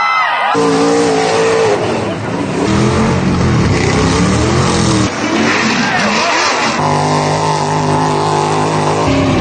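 Lifted mega mud trucks' engines revving hard under full throttle, the pitch climbing and falling, in a string of short clips that change abruptly from one truck to the next several times.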